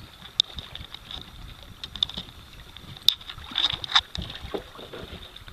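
Wind noise on the microphone aboard a small fishing boat on the water, with a few sharp knocks and clicks scattered through, the loudest about three seconds in. A faint steady high whine runs underneath.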